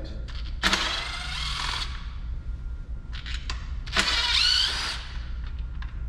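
Cordless drill/driver with a 5/32-inch hex bit running in two short bursts of about a second each, backing out the screws that hold the battery packs on an electric unicycle. Small handling clicks come between the bursts.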